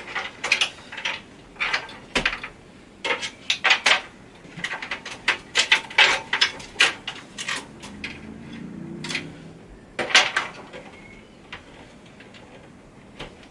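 Irregular clusters of sharp clicks and light clatter as SATA cable connectors are unplugged and the cables handled against a desktop PC's metal case and plastic parts.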